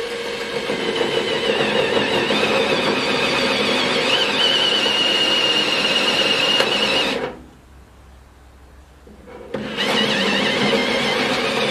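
Ryobi cordless drill with a spot weld drill bit cutting through a spot weld in rusted sheet-steel floor panel. One long steady run of about seven seconds, with a high squeal from the cutter starting partway through, then a pause and a second run near the end.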